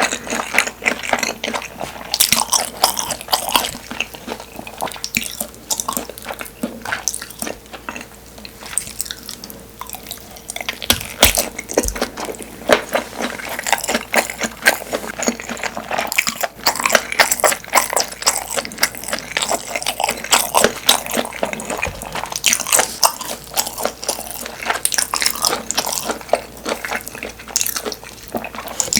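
Close-miked chewing and mouth sounds of someone eating Korean sundae (blood sausage): wet smacks, soft bites and squishy chewing, in quick irregular clicks.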